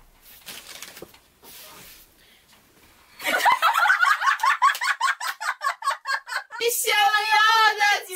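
Women breaking into loud, hearty laughter about three seconds in, in quick rapid pulses; near the end a held, tuneful note begins.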